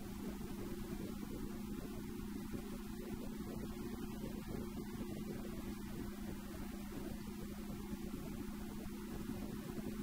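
A steady low machine hum, constant in pitch and level.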